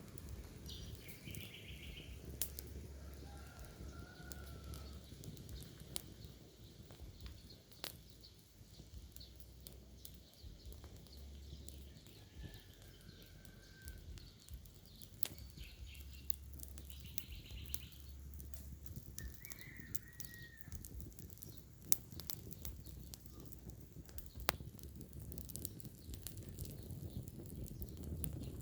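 Fire crackling, with irregular sharp pops and snaps over a low rumble. A few short bird chirps are heard now and then.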